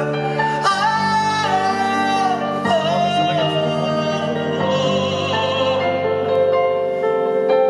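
Live pop ballad: a male singer holds drawn-out, wordless sung notes with a wavering vibrato about halfway through, over steady band accompaniment.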